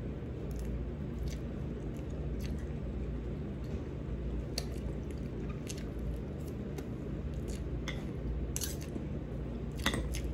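Chewing and mouth sounds of someone eating boiled okra and chicken-liver adobo with rice, with a few scattered light clicks and taps. A steady low hum runs underneath.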